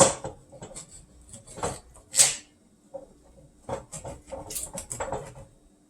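Knife cutting into a whole tilapia: a run of irregular taps and short scraping strokes, the sharpest about two seconds in.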